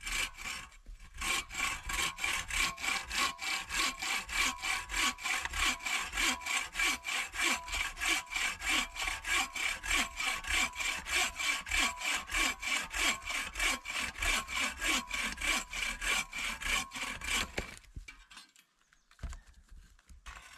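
Bow saw cutting through a log in quick, even back-and-forth strokes, about three or four a second. The sawing stops a few seconds before the end.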